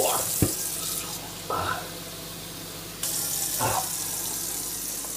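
Water running from a kitchen tap into a stainless steel sink, a steady rushing stream that turns quieter for about two seconds in the middle.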